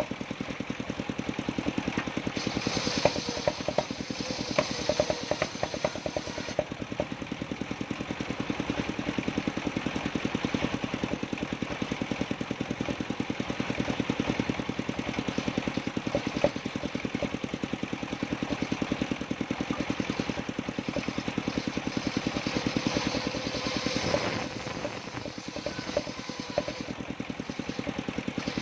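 Engine driving a mobile circular sawmill, running steadily with a rapid, even knocking beat. A higher hiss joins it from about two to six seconds in.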